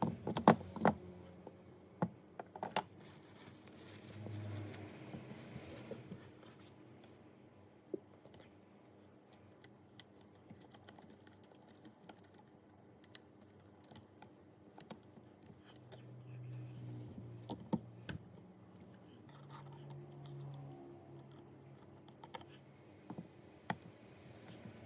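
Small tools clicking and scraping against a smartphone being worked on: scattered sharp clicks and scratches, the loudest few in the first second.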